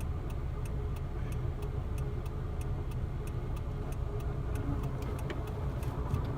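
Daewoo Lanos engine idling in neutral with a steady hum from the worn clutch release bearing, a hum that comes through even at idle. A light regular ticking, about three ticks a second, runs alongside it.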